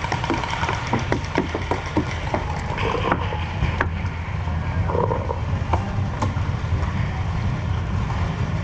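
Paintball markers firing: sharp pops, some in quick strings and many in the first four seconds, fewer after, over a steady low rumble.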